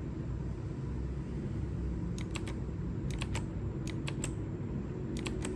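Keys of an AOC GK-230 mechanical keyboard with clicky blue switches being pressed. There are about four short bursts of two or three clicks each, starting about two seconds in, over a low steady background rumble.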